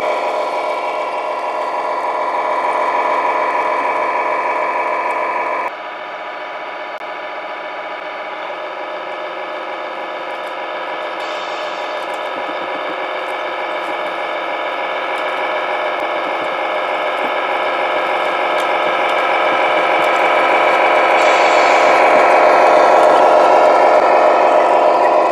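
Tamiya Globe Liner RC truck's MFC-01 sound unit playing a simulated truck engine sound through its small speaker, steady in pitch. It drops abruptly about six seconds in, then grows slowly louder as the truck comes closer and passes.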